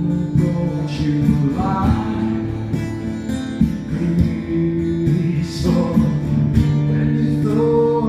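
Acoustic guitar strumming chords in a steady rhythm, played live on stage.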